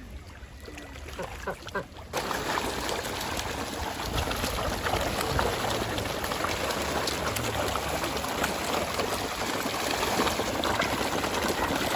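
Water splashing and trickling in a dense, crackling patter made of many small clicks. It starts abruptly about two seconds in and then holds steady.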